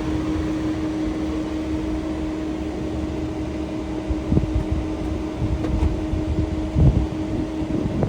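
A steady fan-like whir with a steady hum, broken by a couple of knocks, the louder one near the end; the hum stops shortly before the end.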